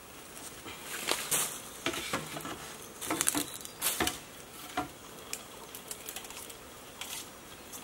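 Hollow green bamboo tubes knocking and clattering as they are handled and fitted together, with light scraping and rustling between the knocks. The knocks come in clusters through the first five seconds, then only a few lighter taps.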